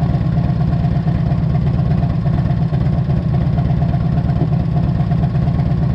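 1998 Harley-Davidson Electra Glide Classic's Evolution V-twin idling steadily while warm, its fresh oil filling the oil filter after an oil change.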